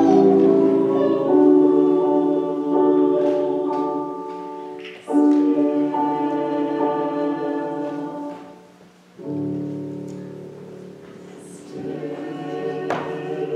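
Small church choir singing a slow hymn in long held chords, each swelling in afresh about five seconds in and again about nine seconds in.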